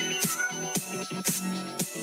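Music with a steady beat, about two strong hits a second over sustained pitched tones.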